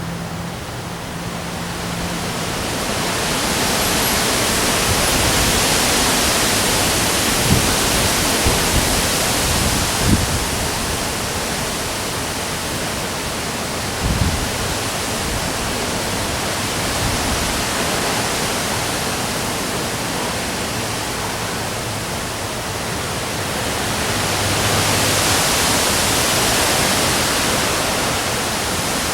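Heavy rain and strong wind making a dense steady hiss that swells with the gusts, loudest a few seconds in and again near the end, with a few brief low thumps.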